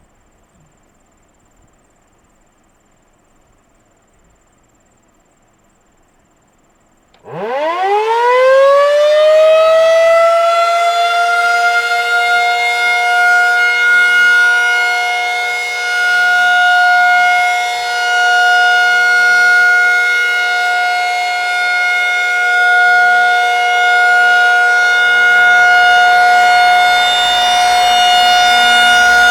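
Federal Signal 2001-SRNB outdoor warning siren starting up on its steady alert test signal: after about seven seconds of quiet, a low tone rises steeply over about four seconds and settles into a loud steady tone, its loudness wavering slightly.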